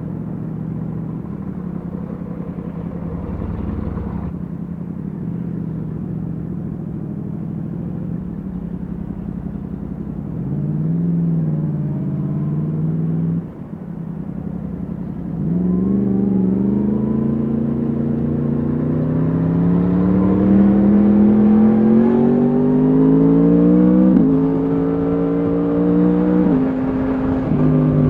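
Yamaha MT-10 SP's crossplane inline-four running through an Akrapovic exhaust. It rolls at a steady low engine speed for about ten seconds and blips up and down once. It then accelerates with the pitch climbing steadily, and the pitch steps at two gear changes near the end.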